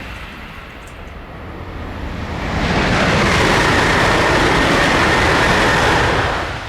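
TGV high-speed train passing at speed: a rushing noise swells over about two seconds, holds loud for about three and a half seconds, then drops off sharply near the end.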